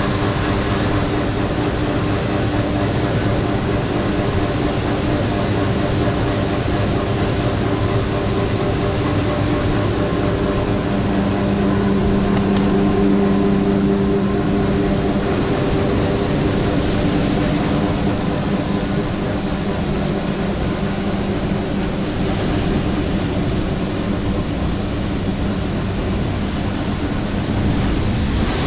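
Heavy diesel harvest machinery running steadily under load: a constant engine hum with steady pitch over a mechanical rush, a little louder for a few seconds near the middle.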